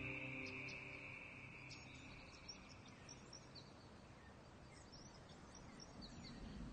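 Background music fading out over the first second or two, leaving faint outdoor bush ambience: a low hiss with scattered short, high chirps.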